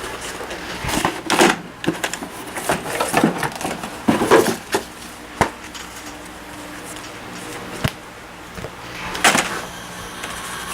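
Scattered clicks and knocks from handling computer hardware, a dozen or so irregular taps, over a faint low steady hum.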